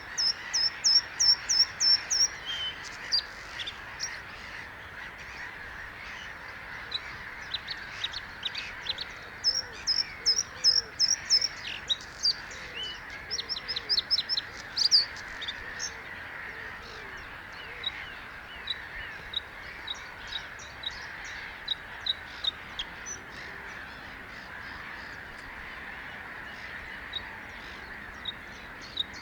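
Bluethroat singing: bursts of rapid, high repeated notes, busiest through the first half, thinning to scattered single notes later, over a steady background hiss.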